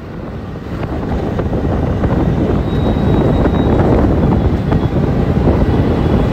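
Wind rushing over the microphone together with the road and engine noise of a motor scooter riding at speed. The noise builds over the first second or so, then holds steady.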